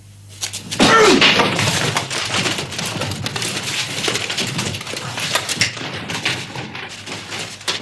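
Men scuffling and shouting as they are seized, over a dense clatter of knocks and thumps that starts suddenly about a second in.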